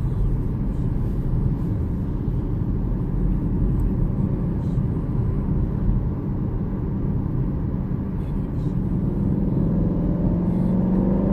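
Road and engine rumble inside a moving car's cabin. From about nine seconds in, an engine note rises steadily in pitch as a vehicle accelerates.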